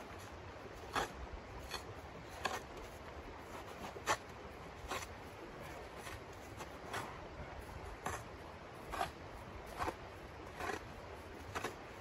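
Small snow shovel scraping and digging into packed snow: about a dozen short rasping strokes at uneven intervals.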